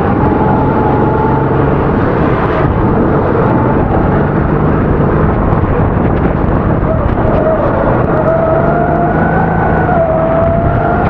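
270cc four-stroke kart engine running hard at race pace, its pitch climbing steadily in the second half, dipping sharply about ten seconds in, then climbing again, over a constant rushing noise.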